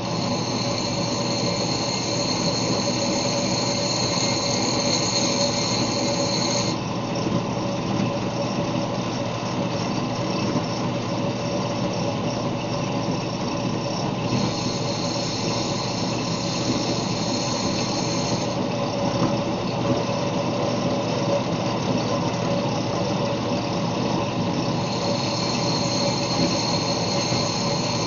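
Disc sander running steadily while the head of a steel carriage bolt is ground down against the abrasive disc. The grinding hiss comes in three spells: over the first seven seconds, for about four seconds midway, and again near the end.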